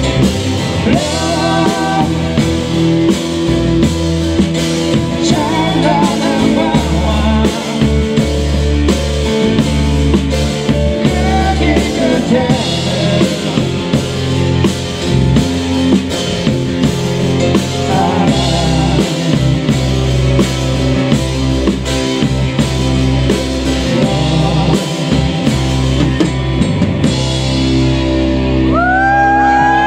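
Live rock band playing a song: drum kit, guitars and a singer over a steady beat. Near the end the drums stop and the band holds a sustained chord.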